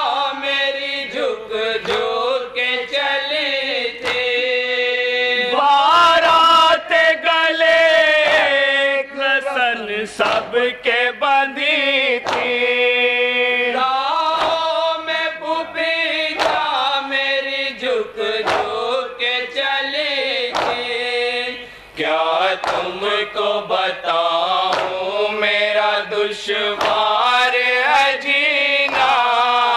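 Male voices chanting a noha (Shia lament) in unison, with a steady rhythm of sharp hand strikes from chest-beating matam through the chant.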